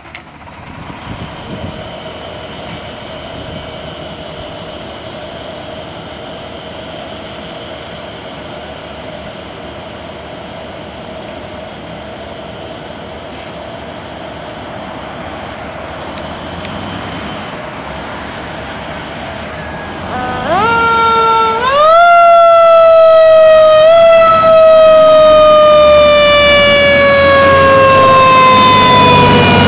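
A fire engine's siren winds up sharply about twenty seconds in, then slowly falls in pitch as the truck pulls away, over the rumble of its engine. Before the siren there is a steady, fairly quiet background hum.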